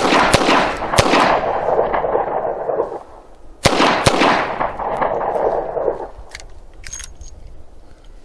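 Smith & Wesson Model 60 .38 Special revolver fired five times: three quick shots, a pause of about two and a half seconds, then two more. Each group trails a long echo that fades over two to three seconds. A few faint clicks follow near the end.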